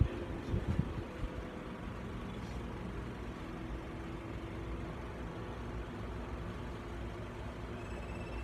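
Steady low rumbling background noise, with a few soft bumps in the first second from the phone and plush being handled.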